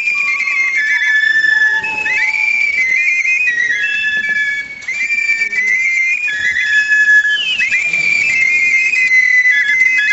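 Several high-pitched whistling wind instruments playing together, holding tones that step between pitches and break into quick trills.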